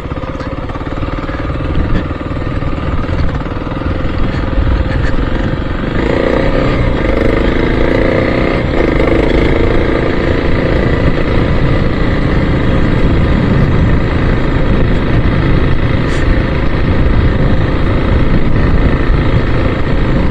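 Dual-sport motorcycle engine running under way on a dirt track. It gets louder about six seconds in as the bike picks up speed, then holds steady at cruising speed.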